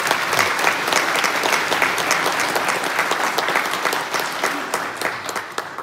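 Congregation applauding: many hands clapping together, dying away near the end.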